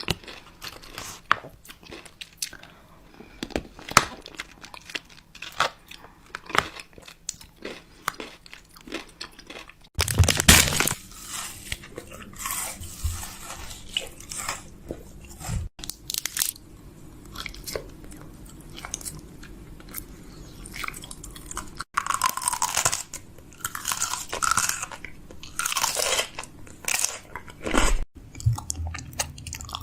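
Refrigerator restocking: packaging crinkling and rustling, with plastic containers and bottles clicking and tapping as they are set into place. The sound changes abruptly every few seconds.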